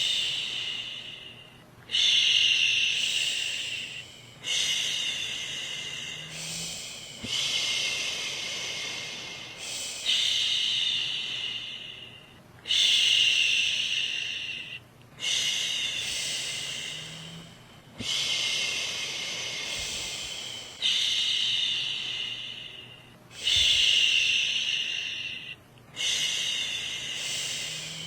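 A woman's voice shushing, a long 'shhh' repeated about every two and a half seconds, each one starting sharply and trailing off. It is the steady shushing used to calm a baby back to sleep.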